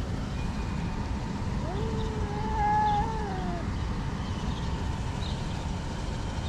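A hungry cat gives one long meow about two seconds in, rising at the start, held, then falling away at the end.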